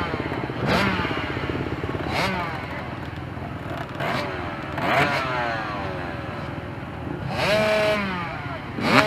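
Several off-road dirt bike engines idling together, with throttle blips that rise and fall in pitch every second or two. A longer, louder rev comes near the end.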